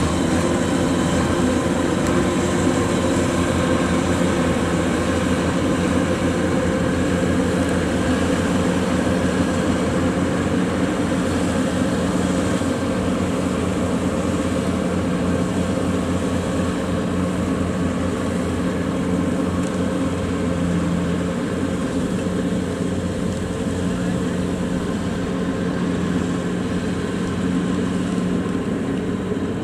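Kubota DC-93 rice combine harvester running steadily under load as it cuts and threshes, a constant diesel engine and machinery drone that eases slightly near the end.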